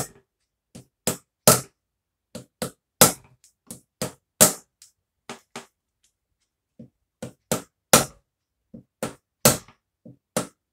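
Sharp metallic clicks from a socket tool worked on the clutch of a Derbi 50cc engine, irregular at about two or three a second, some louder than others, with a pause of about a second midway.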